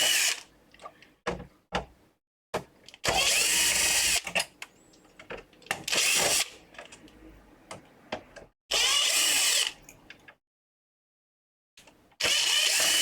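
Small electric screwdriver whirring in short bursts, about five times, as it drives screws out of a PlayStation 5.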